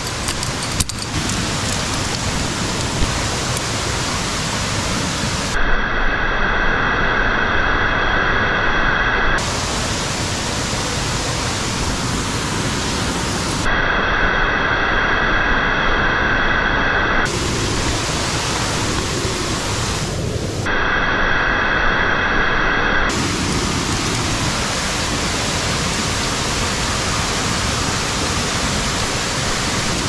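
Steady rush of a large waterfall, about 40 m high, falling close by, heard as a dense even roar of water. Its tone changes abruptly three times. There are a couple of short knocks in the first few seconds.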